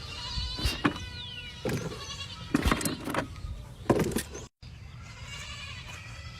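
Small livestock bleating in several separate loud calls, with a few sharp knocks between them.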